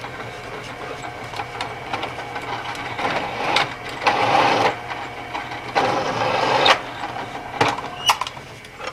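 Drill press running with a countersink bit chamfering the edge of a drilled hole in a metal bar, taking off the sharp edges. Two loud stretches of cutting, about four and six seconds in, over a steady machine hum with scattered clicks.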